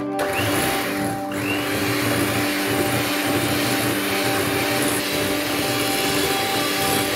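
Electric hand mixer starting up and running, its beaters churning a thick cream mixture in a glass bowl; the motor starts with a rising whine, dips briefly about a second in and rises again. Soft background music with sustained notes plays under it.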